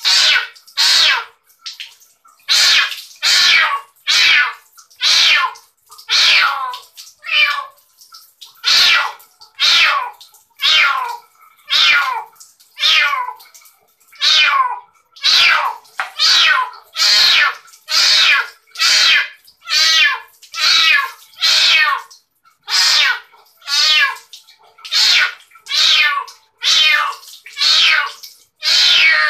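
Young kitten meowing loudly and without letup, about one high cry a second, in distress at being bathed.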